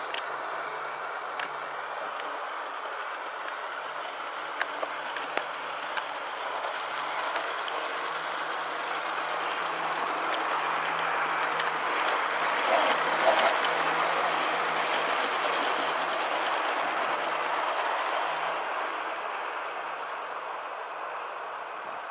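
Aristo-Craft G scale Class 66 model diesel locomotive and its freight wagons rolling on outdoor garden-railway track: a steady rolling noise of wheels and drive that grows louder as the train passes close, peaking about thirteen seconds in, then fades as it runs away.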